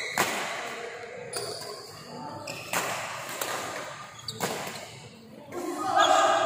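Badminton rackets striking the shuttlecock in a doubles rally: about four sharp hits, a second or so apart, with a short echo after each. Voices call out near the end.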